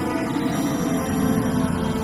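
Film score music: sustained held notes, with a low drone swelling in about halfway through.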